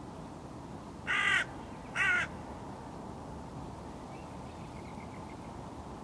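Hooded crow cawing twice, two short, harsh calls about a second apart.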